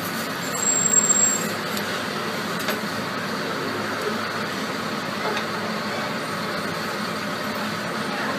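Steady street traffic noise, a continuous hum and rush of passing vehicles, with a brief high-pitched hiss about a second in.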